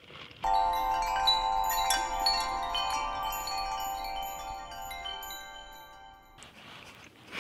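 Wind chimes ringing: a cluster of clear metal tones struck together, more notes joining over the next couple of seconds, all slowly fading before cutting off abruptly about six seconds in.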